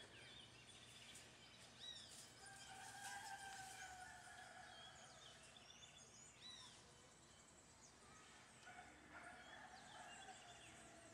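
Faint outdoor ambience: small birds chirping and a rooster crowing twice.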